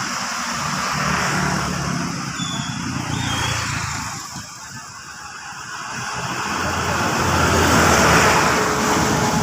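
Bulldozer's diesel engine running with a noisy hiss over a low drone. It drops in level about four seconds in and builds up again near the end.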